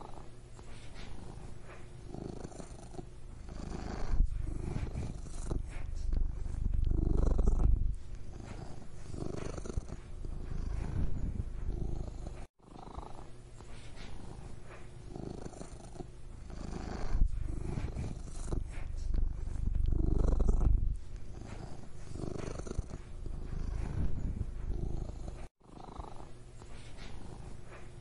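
Domestic cat purring: a continuous low rumble that swells and eases in slow waves, cutting out for an instant twice.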